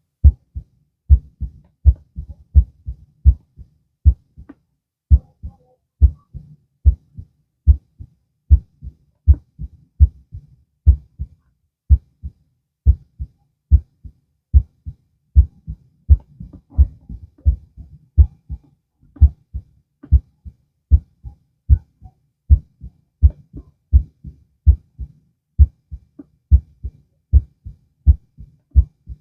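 Human heartbeat heard through a stethoscope: a steady lub-dub rhythm of low, short thumps at a little over one beat a second.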